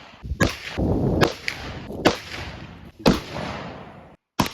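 A string of gunshots about a second apart, each ringing out and decaying, then an abrupt cut and two quick shots near the end.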